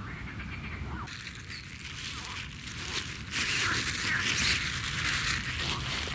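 Close rustling and crackling noise, starting about a second in, louder from about three seconds in and stopping abruptly near the end.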